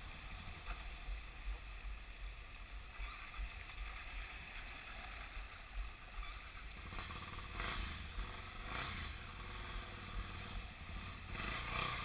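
A loaded dual-sport motorcycle riding slowly through a shallow, rocky creek, its engine running under a steady low rumble while water splashes around its wheels. The sound grows in surges in the second half as the bike comes closer.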